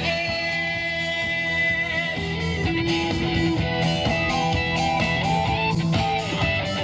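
Instrumental break of a pop-rock song, with guitar leading over a steady beat and no singing.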